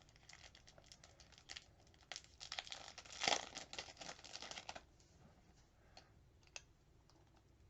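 Packaging crinkling and rustling as an item is unwrapped by hand, with scattered clicks. It is loudest about three seconds in and dies down to a few faint ticks after about five seconds.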